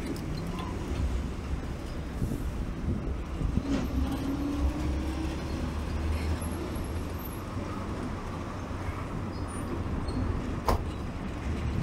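Steady low rumble of vehicle engines and traffic. A faint tone rises slowly about four seconds in, and a single sharp click comes near the end.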